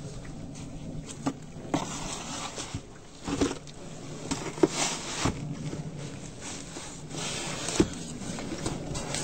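Snow shovel digging into deep, packed snow on front steps: irregular scrapes and sharp knocks, several seconds apart.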